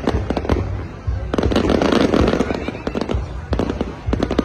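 Aerial fireworks display: a rapid string of bangs and crackles from bursting shells, with a dense flurry of crackling about a second and a half in.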